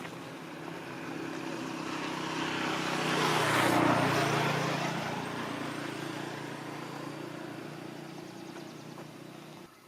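Motor vehicle engine passing by, growing louder to a peak about four seconds in and then fading away, cut off abruptly near the end.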